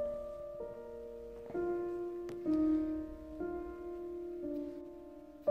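Slow background piano music, with a new held chord about every second.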